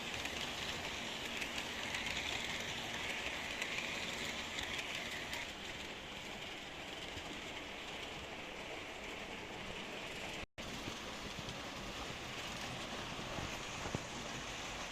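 H0-scale AC model trains running on the layout's track: a steady rolling rattle and hiss, which briefly cuts out about ten seconds in.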